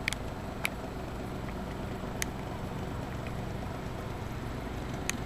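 A few faint, sharp clicks of the pocket camcorder's buttons being pressed while working through its menu, over steady low room noise.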